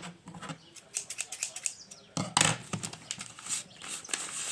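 Irregular clicks and crackles of small objects being handled, with a short rustling burst about two seconds in.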